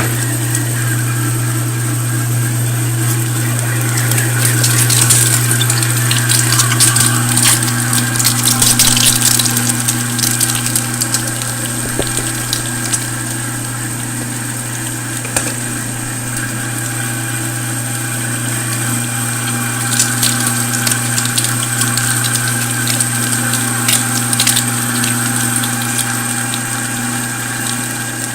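Pro-Cut #22 electric meat grinder running steadily under load, grinding raw meat, with a loud motor hum and bursts of crackling as meat is pushed through.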